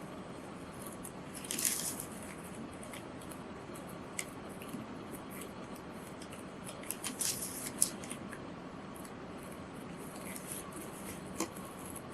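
Scissors cutting through a printed etching on paper: scattered short snips and rustles of paper, the loudest cluster about a second and a half in and another around seven to eight seconds in.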